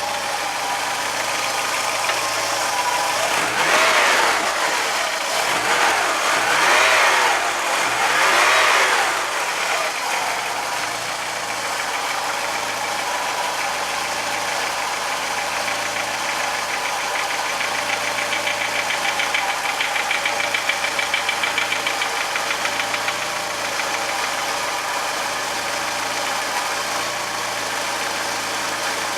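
VW Jetta Mk2's 1.8-litre four-cylinder petrol engine running cold with a strange knock. It is blipped up three times in quick succession a few seconds in, then idles steadily, with a fast, even knocking most noticeable about two-thirds of the way through.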